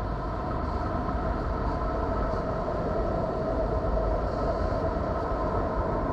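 Steady low rumbling drone with a few faint held hums on top, a NASA Voyager space recording of Neptune converted into sound.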